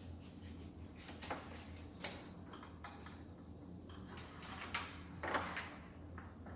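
A few light clicks and knocks, the sharpest about two seconds in, over a low steady hum.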